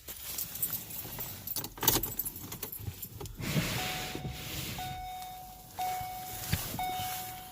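Car keys jangling and clicking as they are handled at the ignition, followed by the car's warning chime, one steady tone repeating about once a second.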